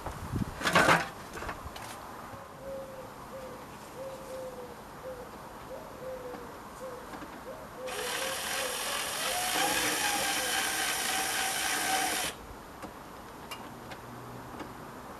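Cordless drill driving a screw into the shed roof for about four seconds in the second half, then stopping abruptly. A few knocks come just before, near the start.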